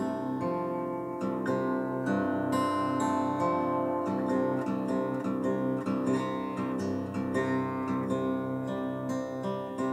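Acoustic guitar played solo, chords picked and strummed and left ringing, with no singing.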